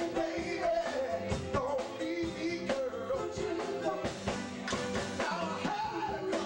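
Live band playing an upbeat song: a lead singer with backing singers over a drum kit beat.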